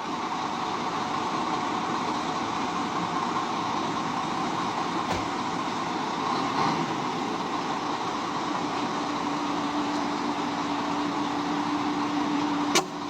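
Steady vehicle running noise, even and without rhythm, with a faint held tone coming in about two-thirds of the way through and stopping near the end.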